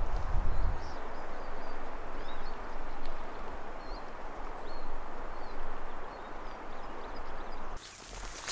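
Steady rushing of river water, with small birds chirping faintly and briefly above it. Near the end the water sound cuts off abruptly to quieter woodland sound.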